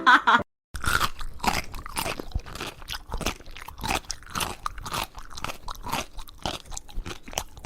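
Crunchy chewing: something hard being bitten and chewed in quick, irregular crunches, starting about a second in.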